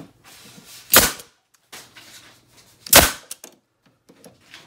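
Porter-Cable nail gun firing twice, about two seconds apart, each a sharp crack with a short tail, as it drives finishing nails through the bookcase panel into wooden spacer blocks.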